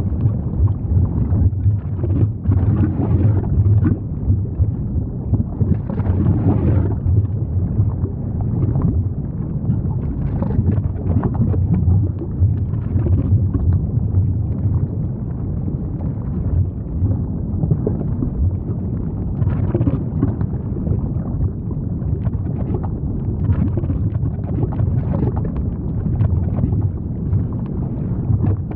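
Lava sound effect: a steady, deep rumble with dense crackling all through.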